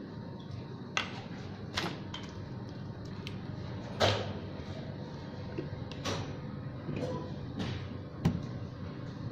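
Plastic ink bottles and a refillable ink cartridge handled on a table: about six sharp clicks and knocks, the loudest about four seconds in and near the end, over a steady background hum.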